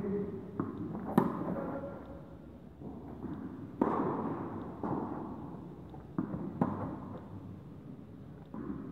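Tennis rally in an indoor hall: a string of sharp ball strikes off rackets and bounces on the court, about seven in all, the loudest about a second in and just before four seconds in, each followed by echo from the hall.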